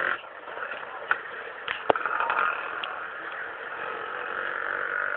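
Outdoor background noise of distant voices and traffic, with a couple of short sharp clicks about one and two seconds in.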